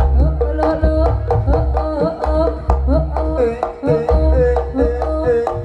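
Javanese gamelan music accompanying a ganongan dance: rapid hand-drum strokes over deep low booms about every second and a half, with a wavering melody line above.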